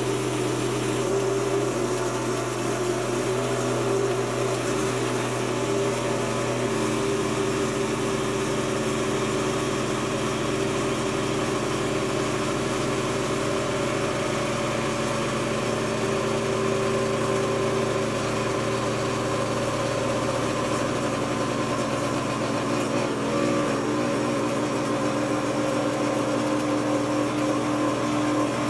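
Electric tabletop cotton candy machine running: its motor spins the heated sugar head with a steady hum while flavoured sugar is spun out into floss.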